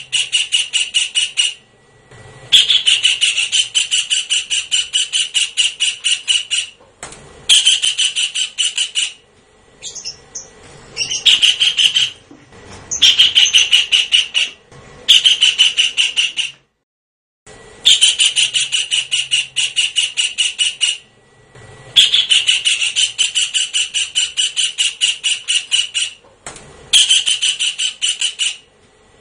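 Kingfisher calling: rapid runs of repeated sharp notes, about five a second, in bursts of one to five seconds with short pauses between them.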